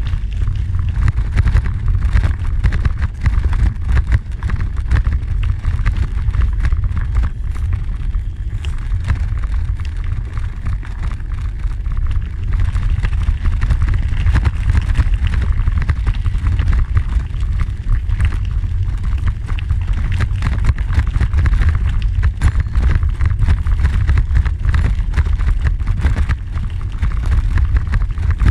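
Wind buffeting the microphone as a steady low rumble, over the crunch and rattle of bicycle tyres rolling on a gravel trail.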